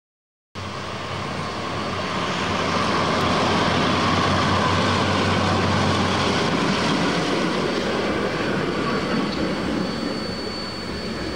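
Diesel locomotive running close by at speed, a loud steady rush of engine and rail noise that cuts in suddenly about half a second in.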